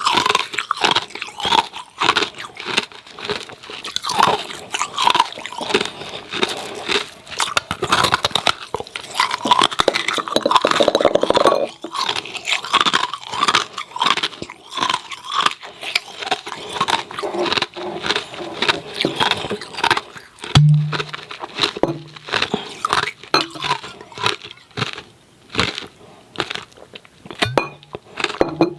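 Hard, freezer-frosted ice cubes being bitten and chewed close to the microphone: a dense run of sharp, irregular crunches.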